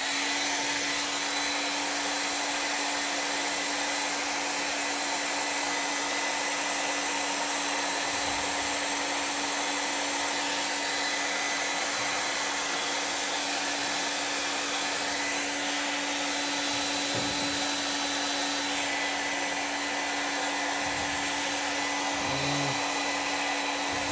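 Handheld hot-air blower switched on and blowing steadily, a rush of air over a steady hum. It is heating a stuck part to soften the adhesive holding it.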